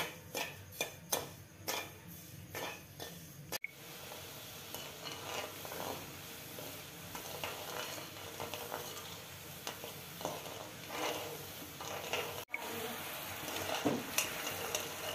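Metal spoon stirring sugar syrup in an aluminium kadai, clinking and scraping against the pan about three times a second for the first few seconds. After that comes a steady sizzle and bubbling as the syrup heats up and comes to the boil.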